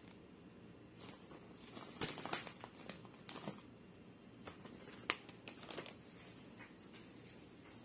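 Faint, scattered crinkling and rustling of a thin plastic food-prep glove as a gloved hand places cheese topping on sausage bread dough, with a few short sharper clicks, the sharpest about five seconds in.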